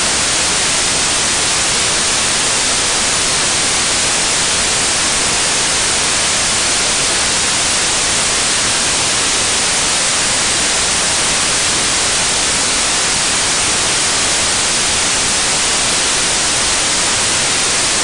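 Steady, loud hiss of static white noise at an unchanging level, with no machine, voice or other sound audible through it.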